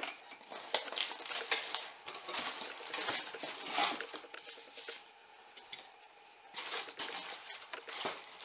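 Packaging being handled and unpacked: irregular crinkling rustle with many small clicks and snaps. It eases off about five seconds in and starts again shortly after.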